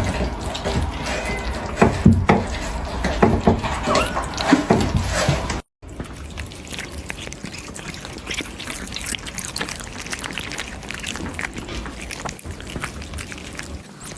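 Kittens eating meat: wet chewing, smacking and licking, a dense run of small sticky clicks. The sound drops out briefly about halfway and comes back quieter and sharper.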